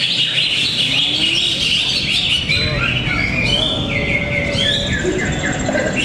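Many caged green leafbirds (cucak ijo) singing at once: a dense, overlapping chorus of quick chirps and whistled phrases that never pauses.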